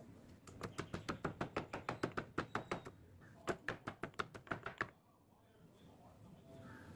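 Pestle pounding garlic cloves and green chillies in a stone mortar: two quick runs of sharp strikes, about six a second, with a short pause between, stopping about five seconds in.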